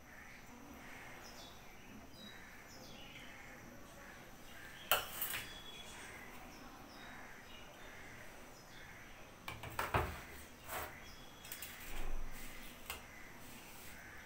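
Stainless steel plate and bowl knocking and clinking against a tiled counter as they are picked up and set down: a few sharp knocks, one about five seconds in and a cluster of them between about ten and thirteen seconds in.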